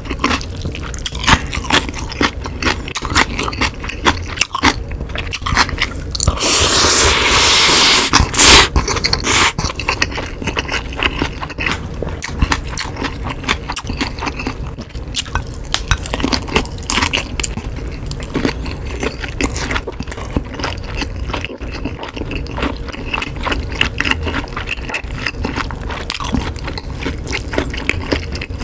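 Close-miked eating sounds: a person chewing spicy ramen noodles and kielbasa sausage, with many small wet mouth clicks throughout. About six seconds in comes one long, loud slurp lasting nearly two seconds.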